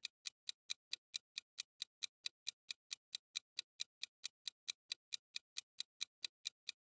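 Countdown timer sound effect: even, clock-like ticking at about four and a half ticks a second, counting down the time left to answer a quiz question.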